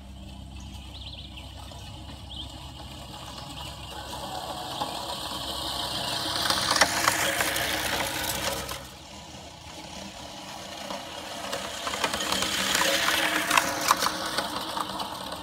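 Fiskars StaySharp Max push reel mower rolling across grass, its spinning reel blades whirring as they cut, with a few sharp clicks. The sound comes in two pushes that build up and fade, the first stopping abruptly about nine seconds in.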